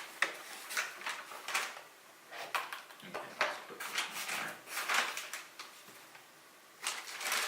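Graphics card packaging being handled: a series of short rustling and scraping bursts as the card is unpacked from its box, with a quieter gap near the end.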